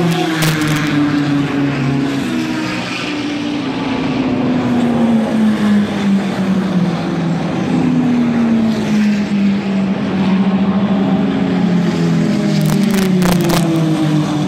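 Sports-racing cars passing at speed one after another, each engine note dropping in pitch as the car goes by. There are about three passes.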